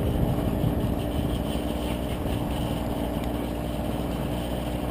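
Yuneec Q500 Typhoon quadcopter's propellers whirring with a steady hum, with gusty wind buffeting the microphone.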